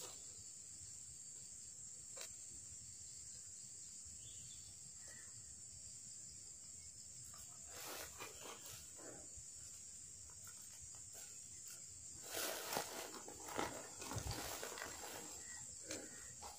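Faint, steady high-pitched insect trill, likely crickets, with soft rustles and small clicks of hands working a fishing hook and line over a woven plastic sack, mostly in the second half.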